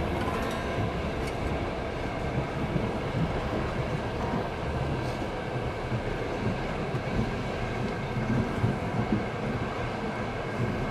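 Moving train, a steady low rumbling noise with no clear rhythm.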